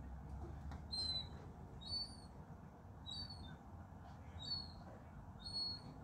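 Juvenile gull giving short, thin, high-pitched whistling calls, five of them at about one a second.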